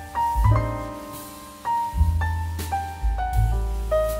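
Background instrumental music: a piano melody of quick single notes moving up and down over deep bass notes.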